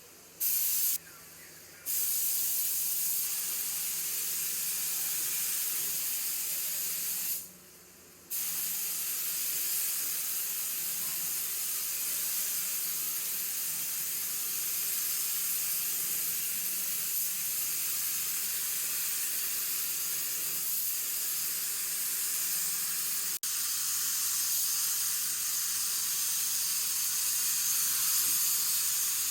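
Compressed-air paint spray gun hissing in long trigger pulls: a short burst about half a second in, then steady spraying from about two seconds in, broken once for about a second near the eight-second mark.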